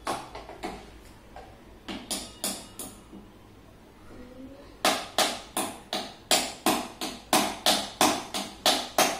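Sharp taps of thin sticks striking a hard surface: a few scattered taps in the first three seconds, then a steady, drum-like run of about three strikes a second from about five seconds in.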